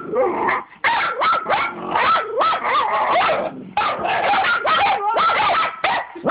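Two puppies barking and growling at each other in play-fighting, a rapid run of short yapping barks with a couple of brief breaks.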